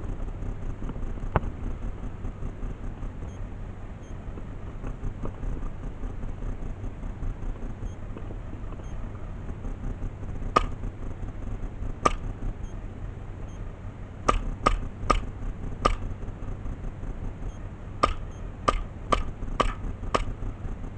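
Airsoft gun fired in single shots: about a dozen sharp cracks, one early and the rest in the second half, several in quick runs about half a second apart, over a steady low background noise.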